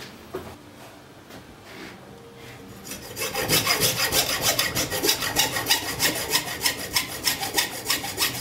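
Hacksaw sawing through the thin-wire secondary winding of a microwave-oven transformer, starting about three seconds in with quick, even back-and-forth strokes.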